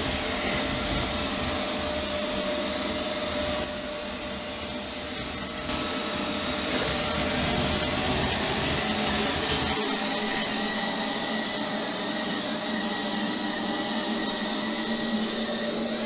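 Neato Robotics robot vacuum running: a steady whir of its motor and brush with a faint steady whine, briefly quieter about four seconds in.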